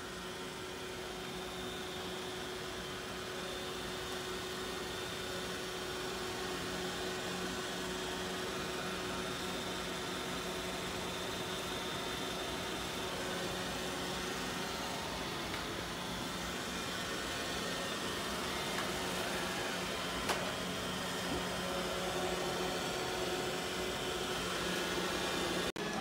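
Robot vacuum running: a steady whir of its motor and fan with a constant low hum, and one small click about twenty seconds in.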